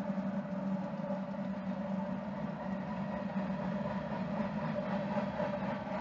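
Diesel locomotives of a passing Union Pacific freight train running, a steady engine sound that holds an even level.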